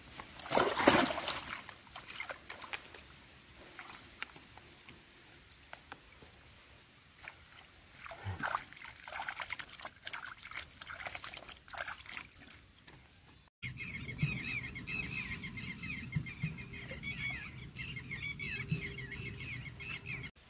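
Water splashing and trickling in the shallows as a caught fish is pushed into a mesh sack and handled underwater. The loudest splash comes about a second in, with more splashing near the middle. After an abrupt cut about two-thirds through, a steady low background carries rapidly repeated high chirps.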